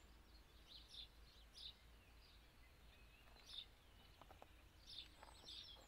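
Faint outdoor ambience: scattered short chirps of small birds every second or so over a low steady rumble.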